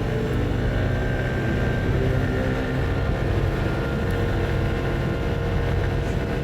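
Yamaha NMAX 125 scooter's single-cylinder engine running steadily while riding downhill.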